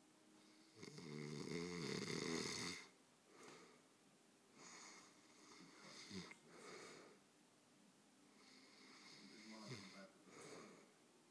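A sleeping person snoring: one long, loud snore about a second in, followed by several quieter breaths a second or two apart.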